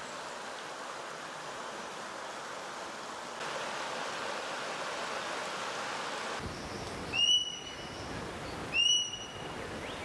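Creek water running over rocks, a steady rushing hiss. About two-thirds of the way in, a bird gives two short, clear whistled notes about a second and a half apart.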